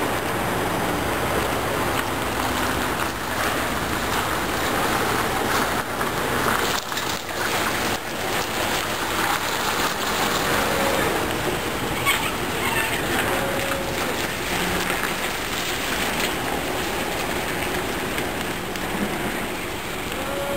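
A heavy tractor truck and its multi-axle low-loader trailer, carrying a railway passenger car, rolling slowly past at close range. The engine runs and the tyres rush steadily, and a few brief squeals come through in the second half.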